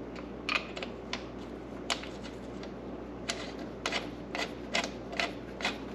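Irregular light clicks and taps as a small backing plate and bolt for a snowmobile rail brace are fitted into place by hand, about a dozen sharp ticks scattered over the few seconds.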